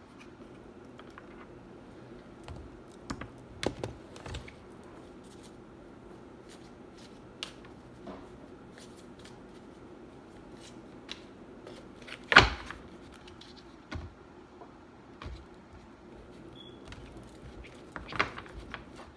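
Oracle cards being handled and set down on a tabletop: scattered light clicks and taps, with one sharper knock about twelve seconds in, over a faint steady hum.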